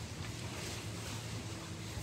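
Steady rain, an even hiss with a low steady hum underneath.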